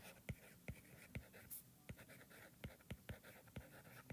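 Faint writing: irregular light taps and scratches of a pen on a writing surface.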